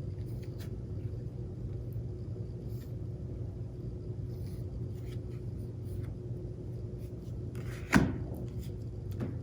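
Steady low hum of room tone, with a few faint clicks and one sharper tap about eight seconds in.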